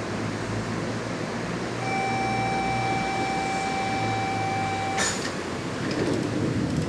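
Trensurb Series 100 Hitachi electric train running, a steady rumble with a low hum underneath. About two seconds in a steady electronic beep sounds for about three seconds and is cut off by a sharp knock.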